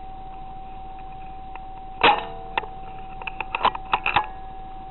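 A single muffled rifle shot about two seconds in, followed by a quick run of sharp mechanical clicks. A steady high whine runs underneath.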